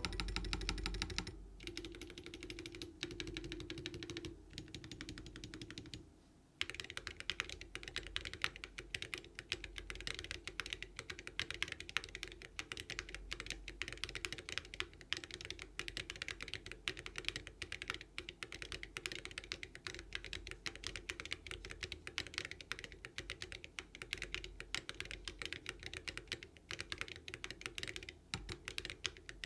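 Typing on a mechanical keyboard: a NEO75 CU with HMX Snowcrash switches and Awekeys Viking metal keycaps, in a clacky sound profile. The keystrokes are sparse and soft at first, then from about six and a half seconds in they become a fast, continuous run of sharp clacks.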